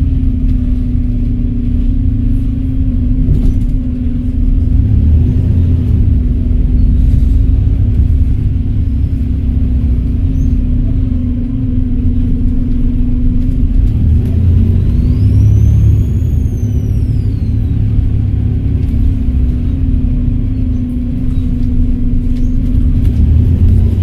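Volvo B7RLE bus's diesel engine running with a steady low drone. Past the middle, the turbocharger whistle rises and falls once.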